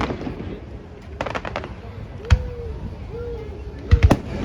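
Fireworks going off: a quick crackling cluster about a second in, a single loud bang just after two seconds, and two bangs close together near the end, over a steady background murmur.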